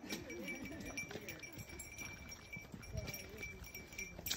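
Footsteps on a dry dirt trail, irregular steps scuffing over soil and small stones, with faint distant talking from other hikers in the first second or so.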